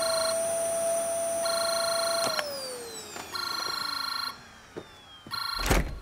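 Cordless landline phone ringing with an electronic ring, about one ring every two seconds. Underneath, a steady tone slides down in pitch about two seconds in, and a thump comes near the end.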